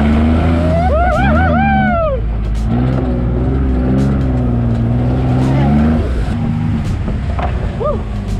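Off-road vehicle engine running under load, its note rising and falling as the throttle changes. About a second in, a person lets out a loud, arching yell, and a short cry comes near the end.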